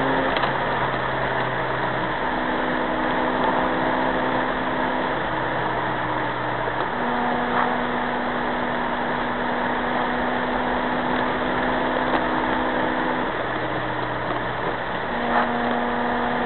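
Inside a car's cabin at a steady cruise: the four-cylinder petrol engine runs at constant revs with a steady hum, over tyre and road noise.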